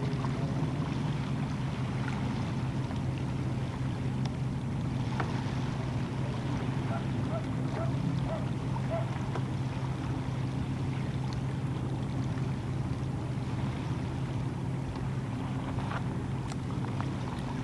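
Steady low drone of a distant engine over faint waterside ambience, with a few soft clicks.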